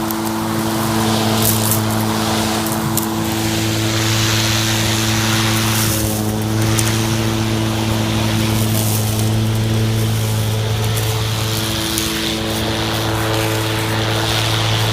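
EGO 56V battery-powered lawn mower running while cutting grass, its motor and spinning blade giving a steady, even-pitched hum under a changing swish.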